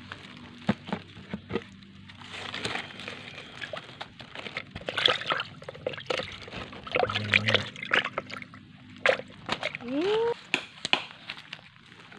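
Water sloshing and splashing in a bucket holding freshly caught fish, with many short splashes and knocks as the fish thrash. A short rising call comes near the end.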